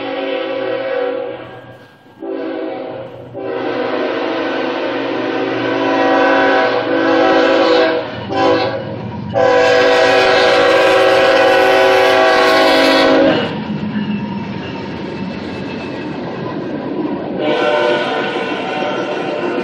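BNSF locomotive air horn sounding a series of long and short blasts; the longest and loudest comes about ten seconds in. The train then rumbles and clatters past before the horn sounds again near the end.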